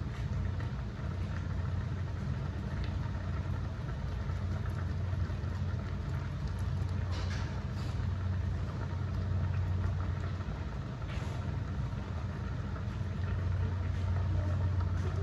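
Large stainless steel stockpot of water at a rolling boil on an electric stove: a steady low rumble with bubbling.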